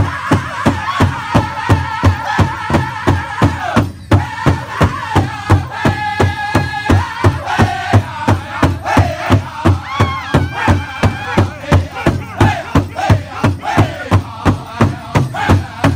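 Powwow big drum struck in a steady beat by a group of drummers, about three beats a second, under men singing together in long held notes. The singing breaks off briefly about four seconds in, then picks up again over the unbroken drumbeat.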